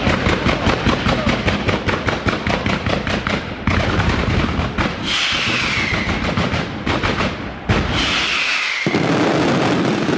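Aerial fireworks display going off in a rapid, continuous barrage of bangs and crackles. Two falling whistling tones cut through it, about five and eight seconds in.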